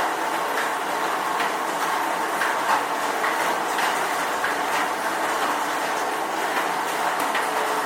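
Steady rain, with scattered louder drops ticking at irregular times; no thunder rumble.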